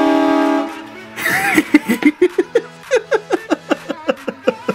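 Train horn blasting loudly, a chord of several steady tones, cutting off about a second in. A short shrill scream follows, then rapid bursts of laughter to the end.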